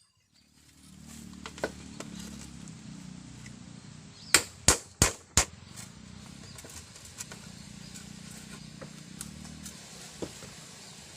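Four sharp knocks in quick succession, about a third of a second apart, a little past four seconds in, over a steady hiss that starts about half a second in.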